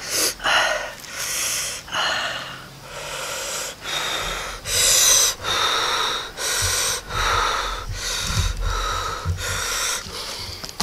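A man breathing hard through pursed lips, a string of airy puffs about one a second, from the burn of raw onion eaten with red chili sauce.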